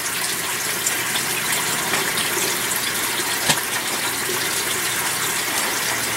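Steady rush of running, bubbling water with a fine crackle, with a single sharp click about three and a half seconds in.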